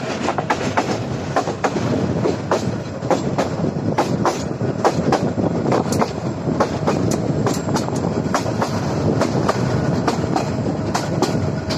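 Passenger train running, heard from an open carriage window: a steady rumble with a quick, irregular clatter of wheels clicking over the rails.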